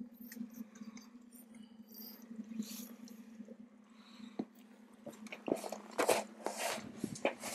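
A boat motor's steady low hum, under irregular scraping and clicking from a fishing rod and reel being worked as a fish is reeled in. The scraping grows louder about five seconds in.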